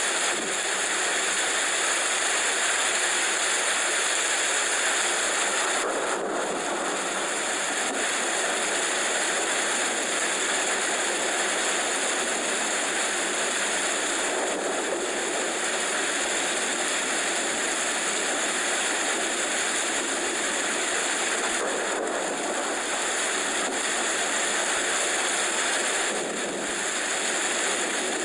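Steady rain, an even hiss that keeps up without a break.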